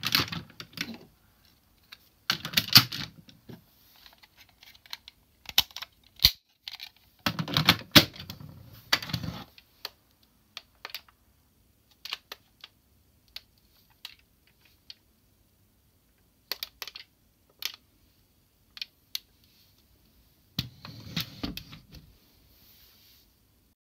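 Hard plastic parts of a DX Tousai Zyuoh robot toy being folded and snapped together by hand: clusters of clicking and rattling, with scattered single clicks in between.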